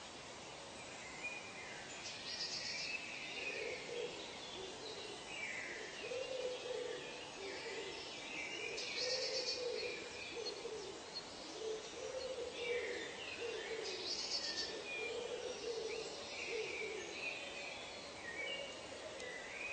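Nature ambience of birds calling. A low hooting call repeats in a long series from a few seconds in, under higher chirps and calls.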